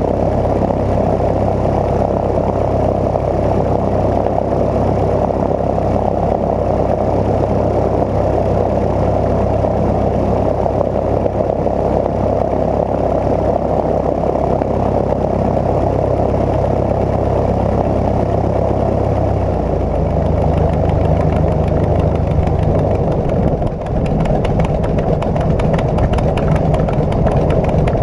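Cozy Mk IV's piston engine and pusher propeller running steadily. The low engine note shifts higher about twenty seconds in, and a brief dip in level comes a few seconds later.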